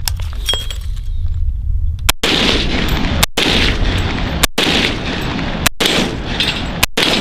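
Wilson Combat 300 HAM'R semi-automatic AR-pattern rifle firing five shots at an even pace, a little over a second apart, starting about two seconds in. Each shot trails off in echo.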